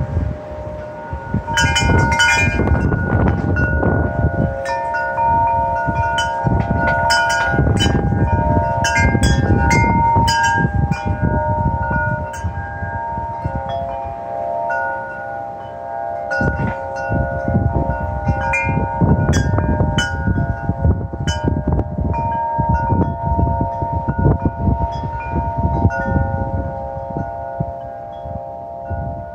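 Wind chimes struck by gusting wind, their several tones ringing on and overlapping, with flurries of strikes as each gust comes through. Wind rushes in surges underneath.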